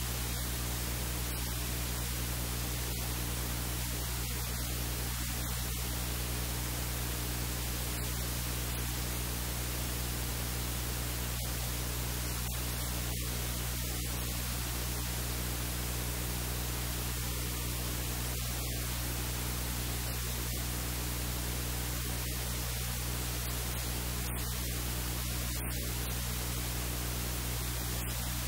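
Steady hiss with a constant electrical hum underneath, like static on a faulty audio line; no voice or kitchen sounds come through it.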